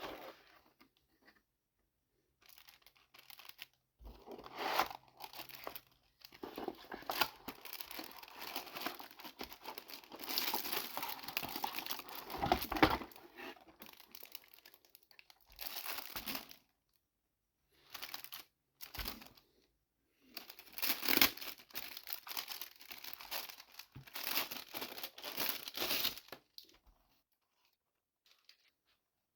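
Keyboard packaging being handled and torn open: crinkling, rustling and tearing in irregular bursts with short pauses, falling quiet near the end.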